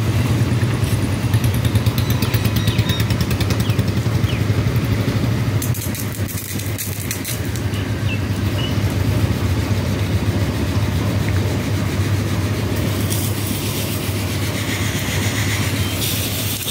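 Mahindra Arjun 605 DI tractor's turbocharged diesel engine idling steadily, with an even low throb.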